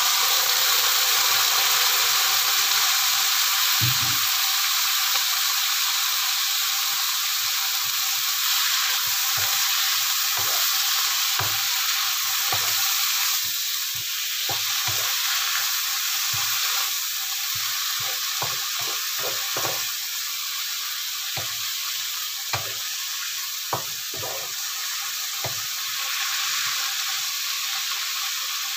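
Cassava and papaya leaves sizzling in a hot wok as a little water is poured in, with a wooden spatula scraping and tapping against the pan as they are stirred. The sizzle is loudest at the start and eases a little, while the spatula taps come more often in the second half.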